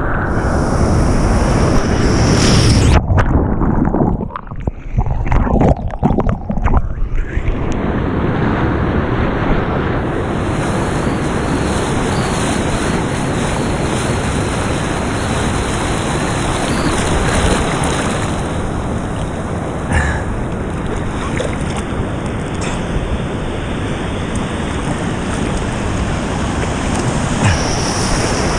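Ocean surf and rushing water heard through a head-mounted GoPro, with wind buffeting the microphone. From about three to seven seconds in, the sound turns muffled and choppy, as when the camera goes under the water.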